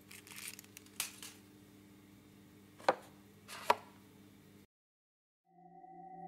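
Animation sound effects: soft rustling and a click, then two sharp knocks, over a low steady electrical hum. The sound cuts out completely about three-quarters of the way through, and a held, chime-like musical chord fades in near the end.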